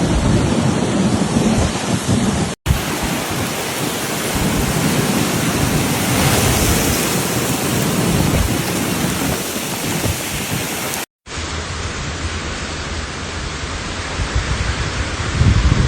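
Cyclone wind and heavy rain, a dense steady rush with a rumbling, gusting low end. The sound cuts out abruptly twice, about two and a half seconds in and about eleven seconds in, as the footage changes from one clip to the next.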